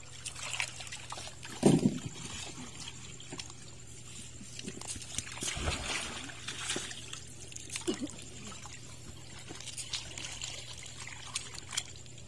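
Shallow lagoon water trickling and lapping among heaps of oyster shells, with scattered sharp clicks of shells knocking and knives prying oysters open. One louder thump comes a little under two seconds in.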